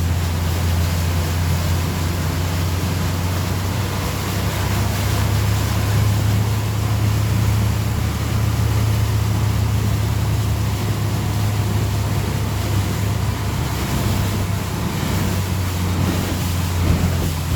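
Motorboat engine running steadily at towing speed, a deep even drone, with water rushing past the hull and wind on the microphone.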